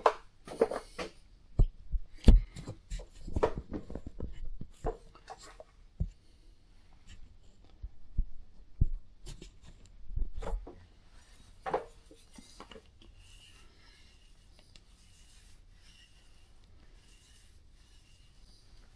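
A few seconds of knocks and clatter from handling things on the bench, then, from about halfway in, faint soft swishes repeated at a steady pace: a small foam roller rolled back and forth over a granite surface plate, spreading a thin coat of blue marking ink for spotting a scraped gib.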